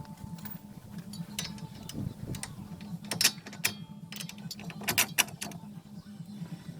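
Irregular sharp metallic clicks and clanks of hand tools and car parts being handled during suspension work, a few louder knocks in the second half, over a steady low hum.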